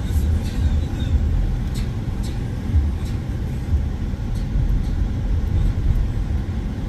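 2014 Mercedes-Benz C300 4MATIC driving on a snow-covered road: a steady low rumble of tyres and drivetrain, with scattered faint clicks.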